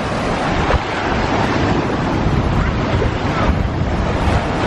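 Strong surf breaking and washing on the shore, with wind buffeting the microphone as a low rumble.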